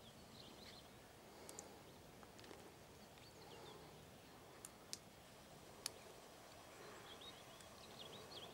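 Near silence: faint outdoor ambience with small bird chirps and three sharp clicks about halfway through.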